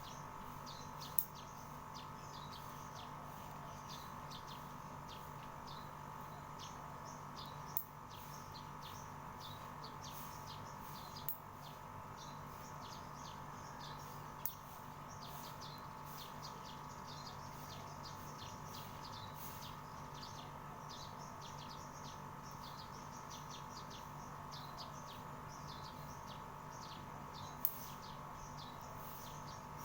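Small birds chirping, many short rapid high chirps throughout, over a steady hum. A few sharp clicks stand out, the loudest about a second in and near the end.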